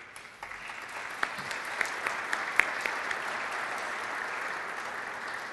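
Audience applauding, swelling over the first second and tapering off near the end.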